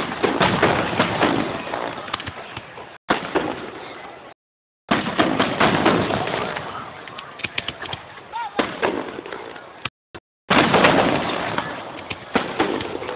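Fireworks display: aerial shells going off in a series of loud bangs, each trailing off into crackle. The sound cuts out to dead silence briefly three times.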